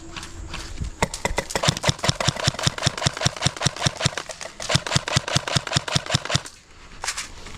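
Airsoft gun firing a long, rapid string of shots, sharp clicks at a steady pace for about five seconds, then stopping. One more shot follows about half a second later.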